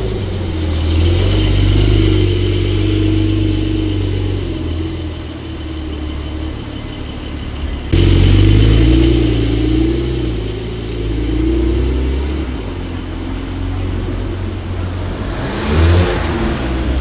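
Supercar engines running at low revs in street traffic, deep and rumbling, their pitch drifting up and down. The sound jumps abruptly about halfway through, and near the end a car passes with a brief swell.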